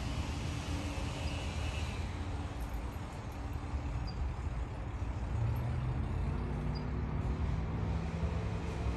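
Steady low rumble of a road vehicle's engine running, growing a little louder and shifting in pitch about halfway through.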